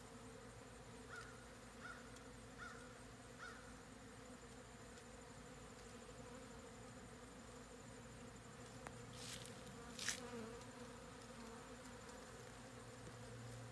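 A crowd of honey bees buzzing in a steady low hum as they swarm an open sugar-water feeder, a feeding frenzy that has turned to robbing. Four short faint chirps sound in the first few seconds, and a couple of sharp clicks come about nine and ten seconds in.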